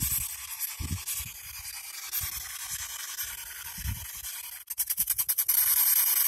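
P-SB7 spirit box sweeping through radio stations: a steady hiss of white-noise static, with a quick run of about ten clicks a second for half a second or so about five seconds in. Dull low thumps come and go under the hiss.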